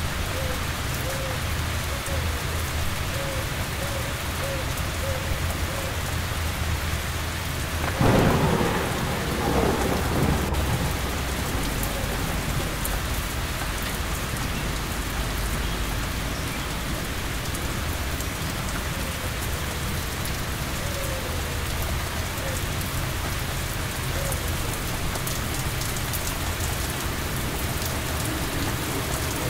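Steady rainfall, with a sudden thunderclap about eight seconds in that rumbles on for a few seconds.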